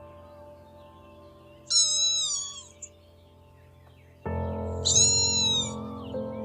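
A cat meowing twice, two high, drawn-out meows of about a second each, falling in pitch, over background music.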